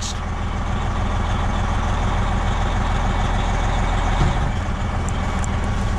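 Semi tractor's diesel engine running steadily, a little louder as the truck pulls ahead against the just-coupled trailer to test that the fifth wheel has locked on the kingpin.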